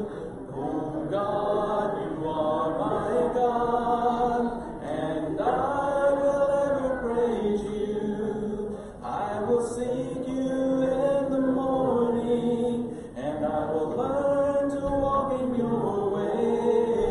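A congregation singing a hymn a cappella, many voices in harmony with no instruments, in long held phrases.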